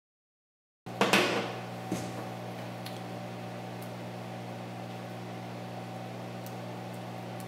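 A steady mechanical hum starts about a second in and runs on evenly. At its start comes a short burst of clicks and rustling from a rubber hose and a small metal fitting being handled, the loudest sound here, then a single soft knock about a second later.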